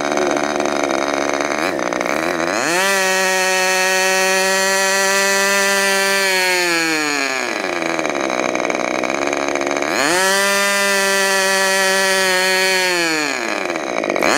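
Modified K&B .61 two-stroke glow-fuel model airplane engine running with its propeller on a test stand. It revs up sharply from a lower speed to a high, steady whine twice, dropping back in pitch each time.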